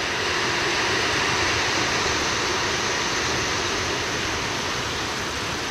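Heavy rain pouring down steadily, an even hiss with no breaks.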